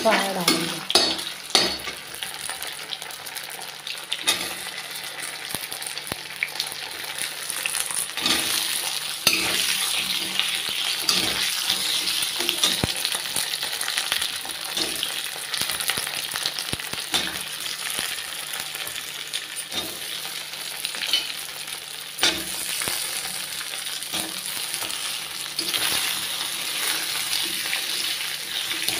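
Pieces of steamed rice dumpling (fara) sizzling in hot oil in a metal kadhai, stirred with a metal spoon that scrapes and knocks against the pan every few moments.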